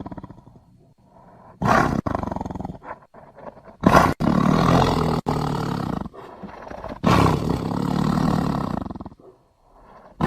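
Tiger roaring three times with short pauses between: a brief call, then two longer roars of about two seconds each.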